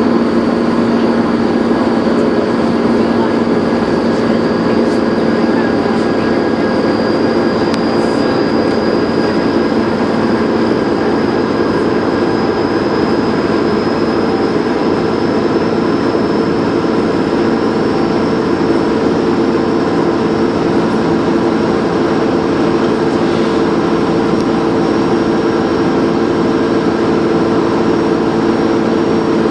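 Dennis Trident 2 double-decker bus's diesel engine running steadily under way, with a high turbo whistle that climbs slowly in pitch.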